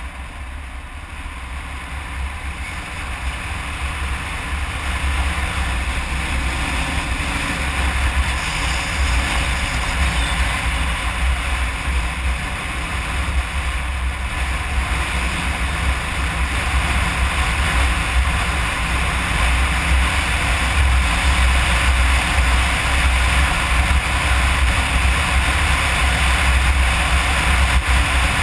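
2009 Kawasaki KLR 650 dual-sport's single-cylinder engine running with a steady low rumble under wind and road noise, growing gradually louder as the bike picks up speed.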